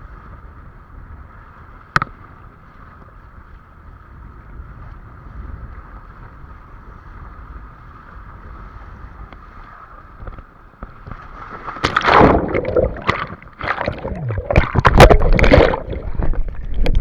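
Water rushing and splashing around a windsurf board. A faint steady wash at first, then loud, irregular splashes from about twelve seconds in.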